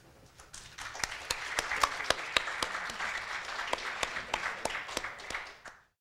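Audience applauding, a dense patter of many hands clapping that swells in about half a second in and is cut off abruptly near the end.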